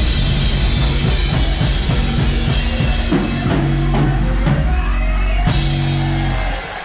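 Rock band playing live, drum kit and electric guitars over a heavy bass line, dropping away just before the end.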